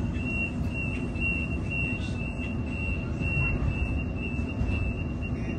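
Door warning beeper of a Millennium (M set) electric train at a platform, sounding a rapid series of short high beeps that stop near the end, over the steady low rumble of the stationary train's underfloor equipment.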